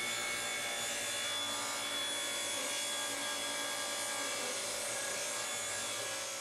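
Table saw running and ripping a wooden blank lengthwise down the middle, a steady whine of the blade cutting through the wood.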